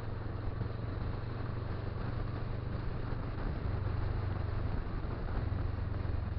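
Motorcycle engine running steadily at cruising speed, a constant low hum under even wind and road noise on the microphone.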